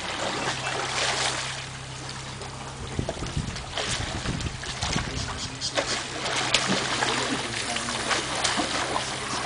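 Tour boat's motor idling with a steady low hum, with water splashing and scattered knocks and clicks.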